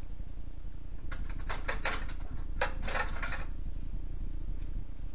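Two quick runs of light clicks and taps, about a second in and again near the three-second mark, over a steady low hum.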